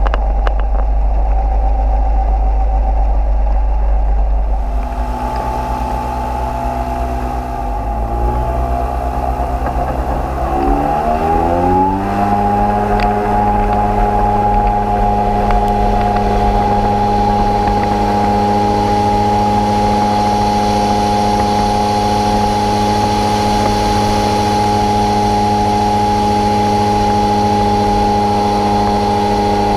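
Microlight trike's pusher engine and propeller running at low power, then opened up, rising in pitch over about four seconds and settling into a steady full-power drone for the takeoff run and climb.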